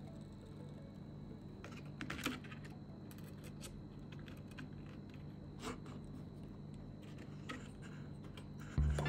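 Faint crinkles and light clicks of a small piece of metal wire mesh being handled and pressed flat onto a plastic bumper, a few scattered strokes over a faint steady hum. Loud music comes in near the end.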